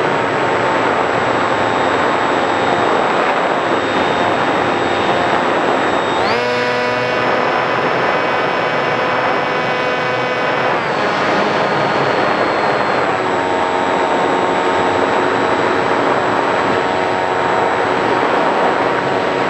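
Electric motor and propeller of a Sky Surfer RC glider in flight, heard from a camera on the plane: a steady whine over rushing wind. About six seconds in the throttle goes up and the whine jumps higher in pitch, then it drops back in two steps a few seconds later.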